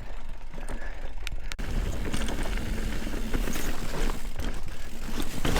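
Mountain bike riding over a dirt trail: steady tyre noise with the bike rattling over bumps, under a heavy low rumble of wind on the microphone.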